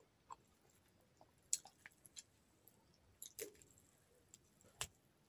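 Faint, sparse wet clicks and squishes of eating by hand: fingers breaking fried fish and mixing it with rice on a plate, along with chewing. About half a dozen short clicks, the loudest about a second and a half in.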